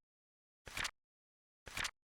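Flip-clock card-flap sound effect, one short double-clack once a second, the clicks of the counting-down seconds.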